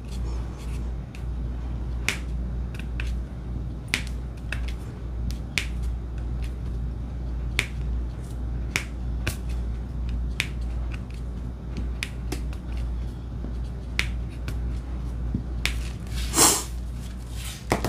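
Diamond painting pen pressing resin drills onto the sticky canvas: irregular light clicks, about one or two a second, over a steady low hum. A brief louder rustle comes near the end.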